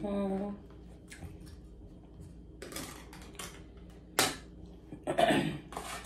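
Metal spoon scraping and clinking against a small tin of oysters, in scattered short strokes, with a sharp clink about four seconds in.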